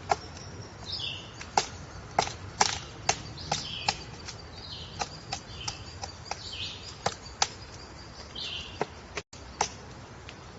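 Woodpecker pecking at wood in single, irregular sharp taps, about one or two a second, with pauses between runs. Short high bird calls that drop in pitch come in between the taps.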